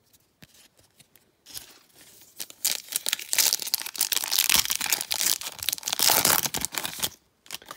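A foil trading-card pack being torn open, its wrapper crackling and crinkling between the fingers. A few faint clicks come first, then about a second and a half in a dense run of crackling builds up and is loudest in the later part, before it stops abruptly near the end.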